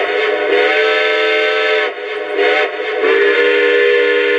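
Lionel O-scale Southern Pacific Cab Forward model locomotive's Legacy sound system blowing its recorded steam whistle through the onboard speaker: a loud chord of several tones at once, sounded in three blasts with short breaks about two and three seconds in.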